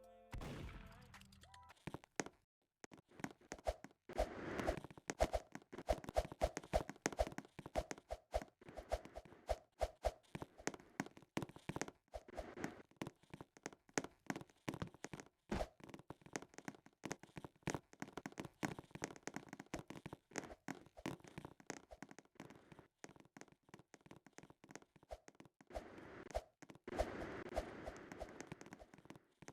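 Faint, irregular taps and clicks, several a second, thinning out to near silence for a few seconds before a short busier patch near the end.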